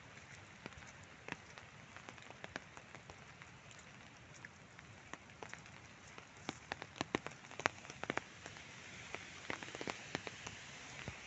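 Steady rain hiss with many sharp, irregular raindrop taps close by, coming thicker and louder in the second half.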